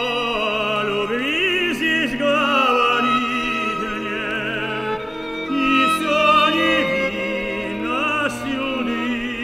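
Operatic tenor singing with orchestral accompaniment, long held notes with a wide vibrato over sustained strings.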